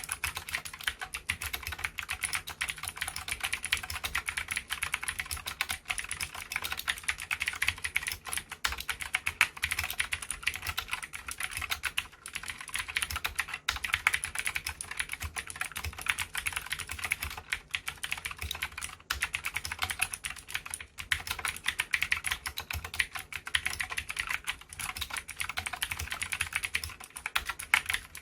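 Continuous fast typing on a Cox CK87 mechanical keyboard with clicky Gateron Green switches: a dense stream of sharp key clicks with short pauses here and there.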